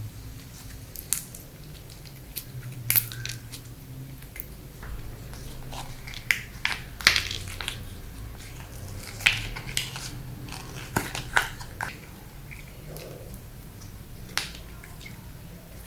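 Slime being mixed and squeezed by hand, giving irregular sharp clicks and short crackles as it is pressed and stretched.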